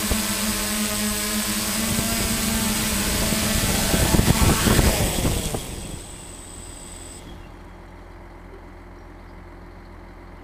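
Six-rotor drone running with a steady motor and propeller hum and a high whine as it descends to land. About four seconds in there is a loud gusty rush as the propeller wash hits the ground. Then the rotors cut off, the whine stopping a little after seven seconds and leaving a faint low hum.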